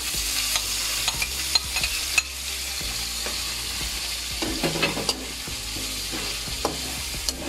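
Chicken livers and chicken pieces sizzling as they fry in oil in a wok, a little louder just after the livers go in. A metal spatula stirs them, scraping and clicking against the wok.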